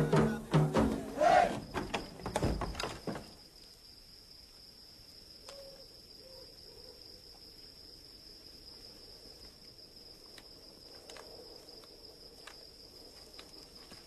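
Percussive drum-led score music that ends about three seconds in, followed by faint night ambience with a steady high-pitched cricket chirr.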